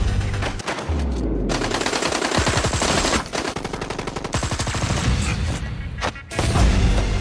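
Rapid automatic gunfire in several long runs of fast shots through the middle, with a low rumble near the start and near the end.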